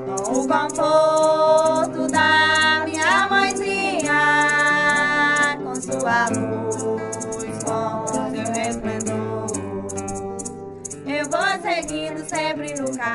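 A Santo Daime hymn: voices singing long, wavering notes over a fast, steady beat, with a pause in the singing through the middle.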